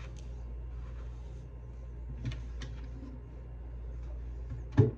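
Steady low hum with a few faint clicks, then a single sharp knock near the end.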